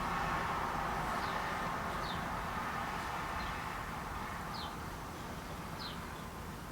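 A small bird chirping over and over, short falling chirps about once a second, over a steady hiss that slowly fades.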